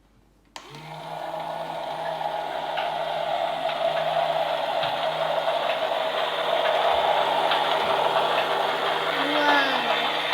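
The battery-powered motor of a toy slime-mixing washing machine, switched on about half a second in and then whirring steadily with a constant hum.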